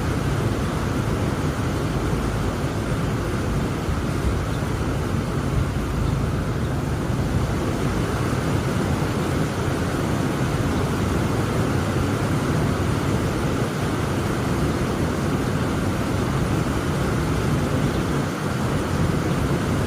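Heavy rain falling steadily: a dense, unbroken noise that is heaviest in the low end, with no separate drops or thunderclaps standing out.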